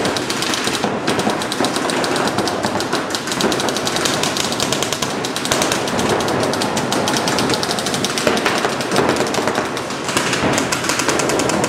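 Several paintball markers firing rapid, overlapping streams of shots without a break.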